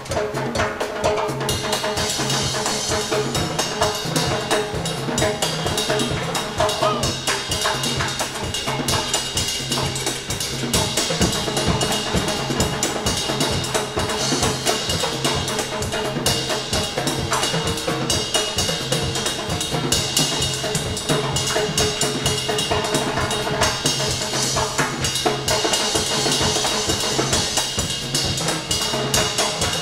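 Live Latin dance band playing an instrumental number, with the drum kit and percussion keeping a steady, driving beat over a repeating bass line.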